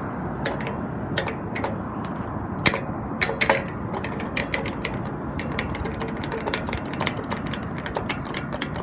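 Pedestrian crosswalk push button being pressed over and over, giving sharp irregular clicks, a few louder ones about three seconds in and then a quick run of them, over the steady hum of street traffic.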